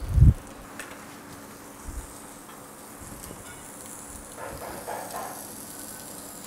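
A low thump right at the start, then a piece of turbot sizzling in a stainless steel frying pan, a steady high hiss that grows stronger about halfway through.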